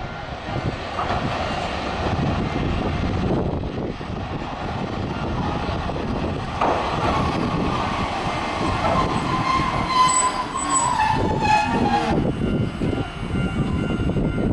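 Hankai Tramway Mo 701-type tram rolling into a stop over street rails, with a steady rumble of wheels on track. From about halfway a high squeal sets in as it brakes, dips slightly in pitch and cuts off as the tram comes to a halt.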